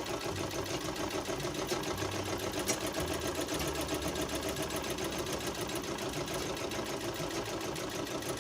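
Treadle sewing machine running steadily with a fast, even mechanical rhythm. There is no knocking from the treadle: the clatter underneath has been cured by re-tightening the treadle's nuts and leaving its spring loose.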